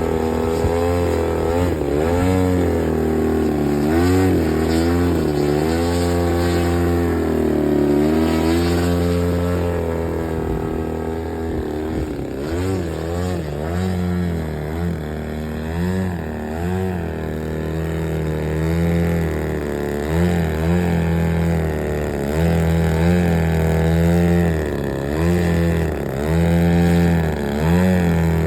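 An engine running continuously, its revs rising and falling every second or two.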